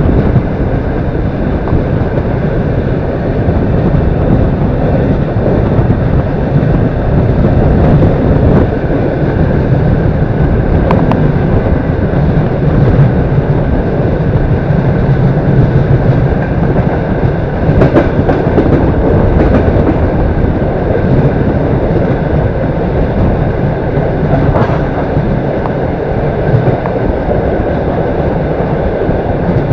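Passenger train running on the rails, heard from aboard: a steady rumble of wheels on track with a few faint clicks.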